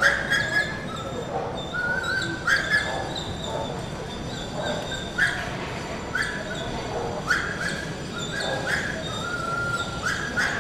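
A dog whining and yelping in short, high-pitched cries, some held briefly, over and over at irregular intervals of about a second.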